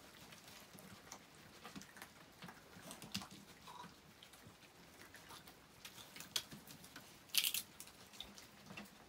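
Baby raccoon tugging and chewing on a rope dog toy: faint scattered clicks, scuffs and rustles, with a short, louder rasp about seven seconds in.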